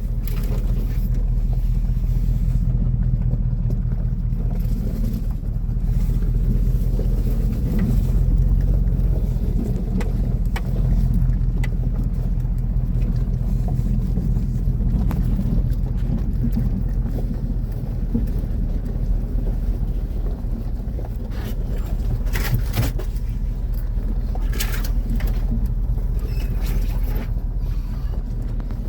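Truck engine running steadily at low trail speed, a low drone throughout. Desert brush scrapes and scratches along the truck's body now and then, most plainly twice about three quarters of the way through.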